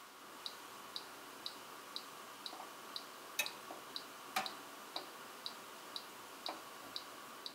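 Balmuda toaster's mechanical dial timer ticking evenly, about two ticks a second, while the toast bakes. Two louder sharp clicks come about a second apart near the middle.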